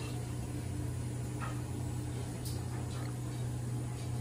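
Restaurant room tone: a steady low hum, with a few faint clicks about one and a half, two and a half and three seconds in.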